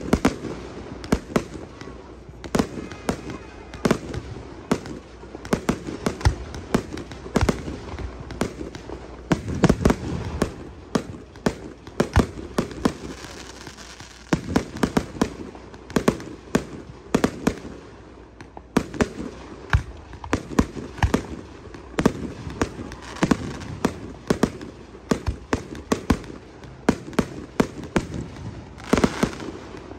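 Fireworks going off in a rapid, irregular barrage: many sharp bangs and crackles from bursting aerial shells, several a second at times, with no pause.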